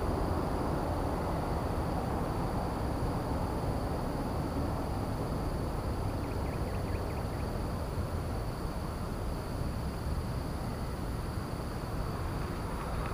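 Steady outdoor background noise: an even low rumble with two faint, constant high-pitched tones over it, and a few faint ticks about six to seven seconds in.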